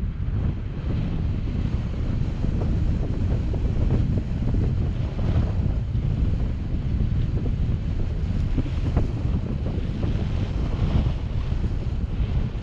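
Strong wind buffeting the microphone: a dense, low rumble that swells and dips with the gusts.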